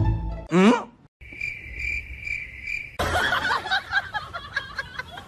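Cricket chirping added as a comedy sound effect: a steady high pulsing chirp lasting about two seconds, just after a quick falling whistle-like glide. A denser jumble of sounds takes over for the last two seconds.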